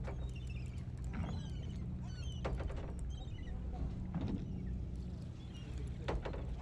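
A boat's engine runs with a steady low hum while birds call over it in short falling chirps. A few knocks sound against the hull or deck along the way.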